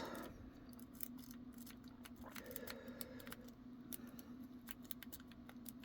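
Lock pick raking the pins of a pin-tumbler lock: a quick, irregular run of faint metallic clicks and scrapes as the pins are worked toward opening.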